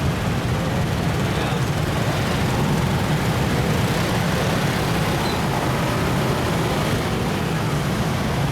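Steady low rumble of vehicle traffic, engines and road noise with no distinct events.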